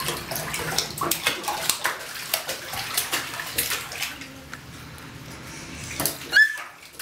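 Water splashing in an infant bath tub as a baby slaps at it with her hands, quick splashes for the first few seconds, then calmer water. Near the end, a brief high squeal from the baby.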